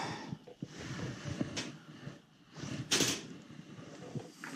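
Small clicks and knocks of hands and tools working on a gas boiler's gas valve and its fittings, with a short rushing noise about three seconds in.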